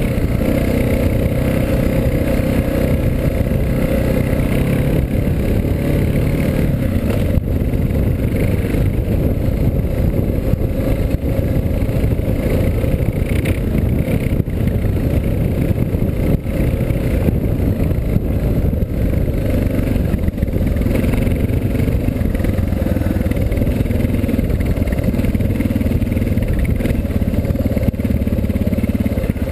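Suzuki DR650's single-cylinder four-stroke engine running steadily under way on a dirt trail, its pitch rising and falling a little with the throttle.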